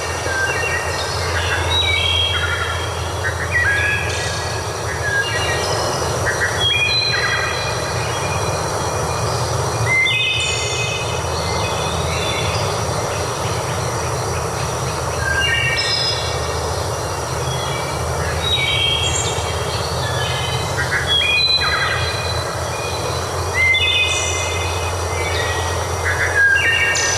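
Birds calling in repeated bursts of short stepped notes over a steady rush of running water with a low rumble underneath.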